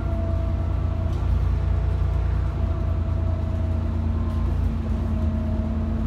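Alexander Dennis Enviro 400 double-decker bus on the move, heard from inside: a heavy diesel engine drone with a thin whine over it that sinks slightly in pitch.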